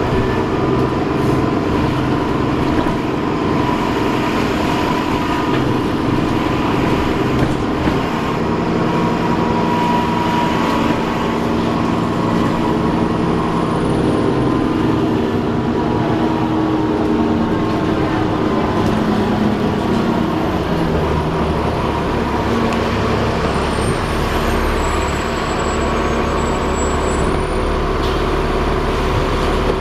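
Alexander Dennis Enviro400 double-decker bus running in service, heard from on board: a steady engine and driveline drone with a persistent whirring tone over it. The pitch of the drone shifts around twenty seconds in.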